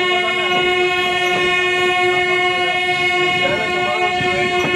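Locomotive horn held in one long, steady note, heard from a coach of a moving train, with faint rattling clicks of the train beneath it.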